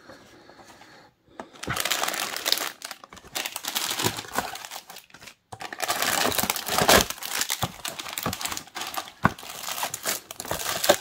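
Clear plastic bags of model parts crinkling and crackling as they are handled and pulled out of the packaging insert. The crinkling starts about two seconds in and comes in two stretches with a short break a little past the middle.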